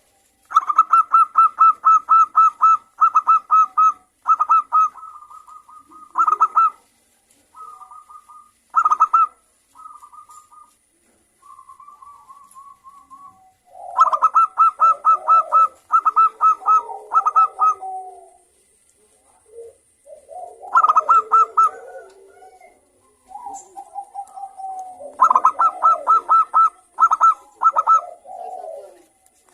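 Zebra doves (perkutut, Geopelia striata) calling: bouts of rapid, high staccato cooing notes, about ten a second, broken by short pauses, with lower, rougher warbling notes mixed into the later bouts.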